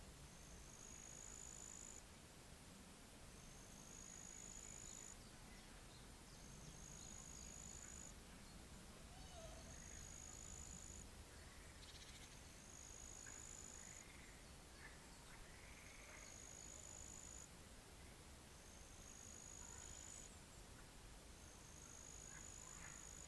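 Faint pond-side nature ambience: a high, thin trill about a second and a half long repeats about every two seconds, with a few scattered faint bird chirps over a low, steady rumble.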